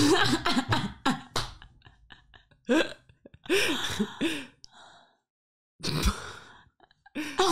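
Women laughing in short, separate bursts, with breathy, cough-like outbreaths between them.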